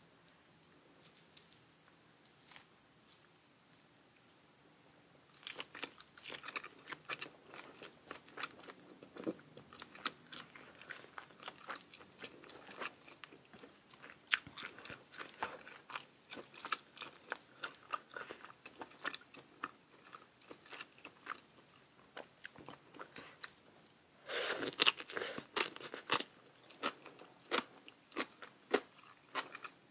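A person chewing and crunching crisp food close to the microphone. It is mostly quiet for about the first five seconds, then runs as irregular crunchy chewing, with a louder burst of crunching about 24 seconds in.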